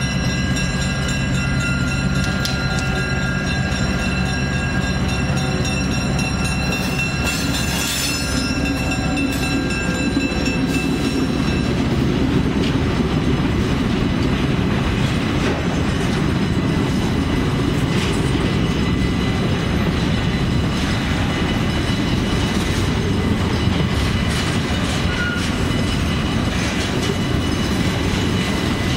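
The 1952 EMD SW8 switcher's diesel engine runs steadily as the locomotive reaches and passes the crossing. Then its freight cars roll by with a continuous rumble of wheels on rail and scattered clacks.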